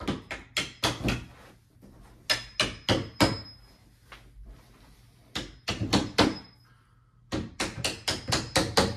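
A hammer tapping steel door hinge pins down into their hinges to seat them, in four quick bursts of several taps each. A faint metallic ring follows some of the strikes.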